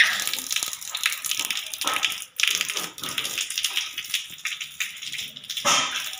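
Water running and splashing onto a wet concrete floor, with irregular splashes throughout.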